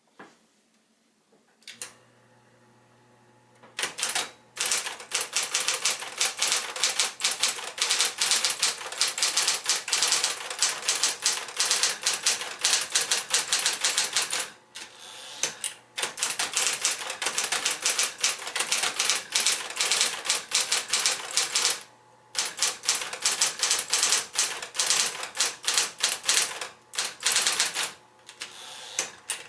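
Smith-Corona Electra 110 electric portable typewriter: its motor is switched on with a click and hums steadily, then rapid typing begins, with dense runs of keystrokes broken by a few short pauses.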